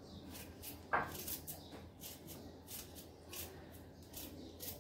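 Kitchen knife slicing a cucumber held in the hand: faint crisp cuts, about two or three a second, with one louder short sound about a second in.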